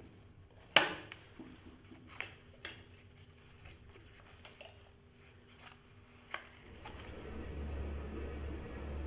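Several sharp clicks and metallic knocks, the loudest about a second in. About two-thirds of the way through, the Nitto LO-3550 magnetic drill's motor starts and builds to a steady run.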